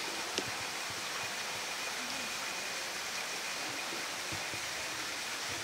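Steady rushing of running water, with one short click about half a second in.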